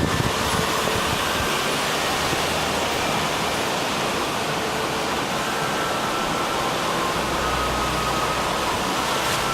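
Steady, even rush of sea surf, with no single wave breaks standing out.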